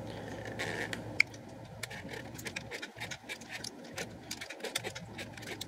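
Quiet, irregular ticking and clicking as a coin turns the film-rewind key of a Mamiya 6MF fitted with its 35mm adapter, winding the film back into the cassette.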